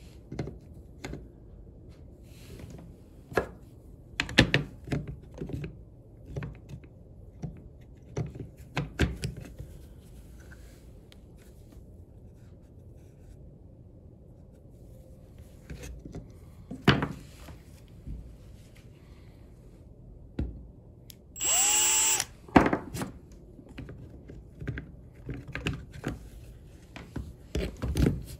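Small metal and plastic clicks and knocks as a metal cord grip connector and its nut are handled and fitted into a circular saw's plastic handle. About three quarters of the way through, a cordless drill runs for about a second, its pitch falling as it stops.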